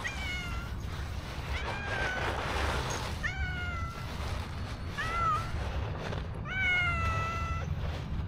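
Black street cat meowing for food: five meows about a second and a half apart, the last one the longest, over a steady low rumble.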